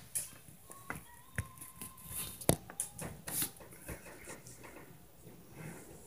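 Irregular knocks and thumps from the apartment upstairs, the loudest about two and a half seconds in: neighbours stomping on the floor above.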